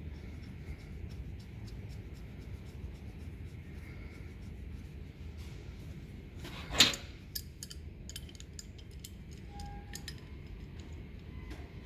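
Small metal parts being handled during a sprayer pump repair: one sharp clank about seven seconds in, followed by a series of light clicks and taps, over a steady low hum.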